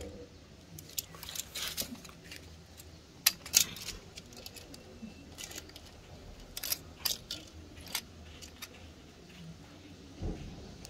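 Small toy vehicles being handled: irregular light clicks and clatter of hard pieces knocking together, loudest a little after three seconds in.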